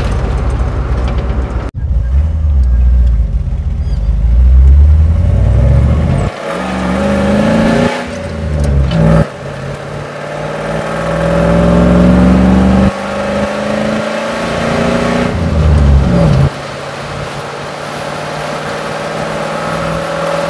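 Ford 351 Cleveland V8 of a 1978 F350 heard from inside the cab, accelerating with a manual four-speed: the engine note climbs, drops back at each gear change and climbs again several times. Near the end it settles into a steady, lower cruising note.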